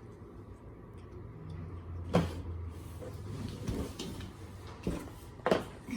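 A few sharp knocks and clicks from objects being handled on a table, three in all, the loudest about two seconds in, over a low steady hum.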